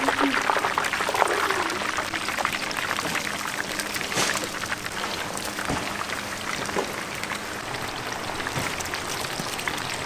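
Chicken deep-frying in hot oil in a cast-iron cauldron: a steady crackling sizzle, dense with fine pops.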